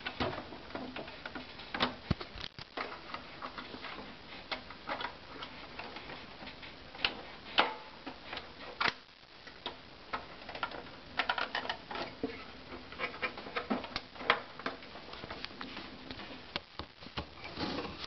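Irregular plastic clicks and knocks as the front panel of a Dell Dimension 2400 desktop tower is worked loose from its retaining tabs, with a handful of sharper snaps spread throughout.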